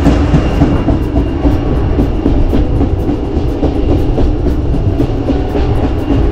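White Pass & Yukon Route passenger train running along the track, heard from the open platform between coaches: a steady low rumble of the wheels on the rails with a regular light clicking over the rail joints.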